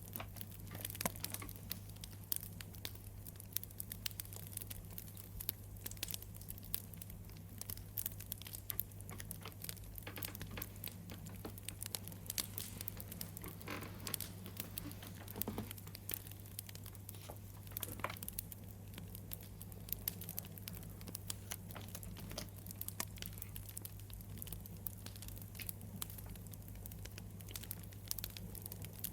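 Wood fire crackling, with irregular small pops and snaps throughout and a steady low hum underneath.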